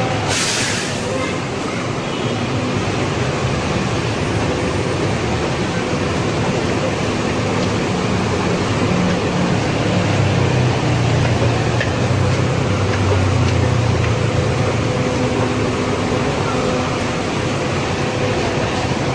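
Steady vehicle and traffic rumble with a low engine drone that swells in the middle, and a short hiss just after the start.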